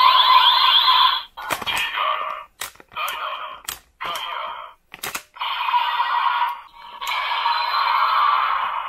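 DX Dark Z Riser toy's small built-in speaker playing electronic effects and a voice calling out medal names such as "Gaia!" as Ultra Medals are read, starting with a rising electronic sweep that cuts off after about a second. The sound comes in short segments broken by several sharp plastic clicks as the medals are slotted and handled.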